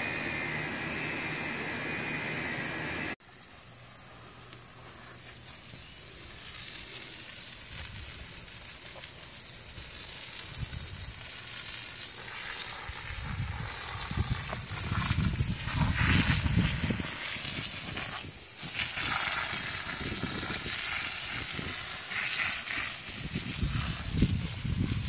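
Garden hose spray nozzle hissing steadily as water is sprayed onto a gypsy colt, with irregular low rumbles mixed in. A steady motor-like hum plays for the first three seconds and cuts off suddenly.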